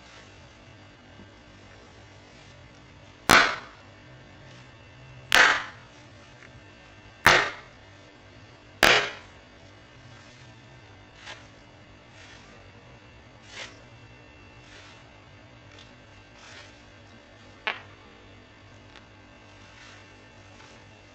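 Four sharp clicks or snaps about two seconds apart, each fading quickly, followed by a few fainter ticks spaced further apart, over a low steady hum.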